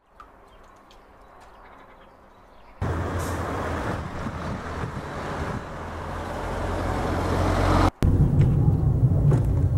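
Faint outdoor background, then a small car (Fiat 500) approaching along a road, its engine and tyre noise growing steadily louder. After a short break, steady engine and road rumble heard from inside the car's cabin, louder and deeper.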